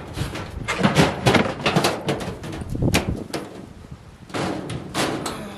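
Irregular knocks, clunks and scraping as a chicken plucker is handled and shifted about.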